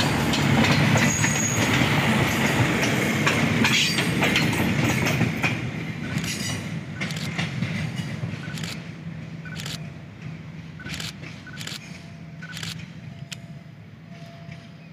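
Passenger train coaches passing close by, their wheels rumbling on the rails, then fading as the train pulls away; as it recedes, a run of sharp, irregular clicks from the wheels going over rail joints stands out.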